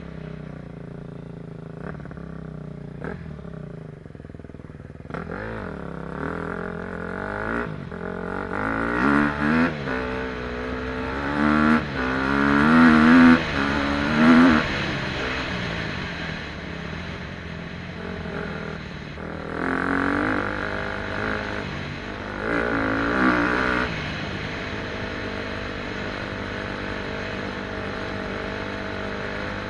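KTM 250 SX-F four-stroke single-cylinder dirt bike being ridden, its engine revving up and down repeatedly, loudest about halfway through. Near the end it settles into a steady, even engine note.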